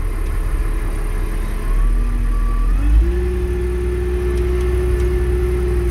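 Diesel engine of a Caterpillar wheel loader, heard from inside the cab. It runs steadily, rises briefly, then about three seconds in throttles up and holds at higher revs as the loader drives toward the sand pile with its bucket lowered.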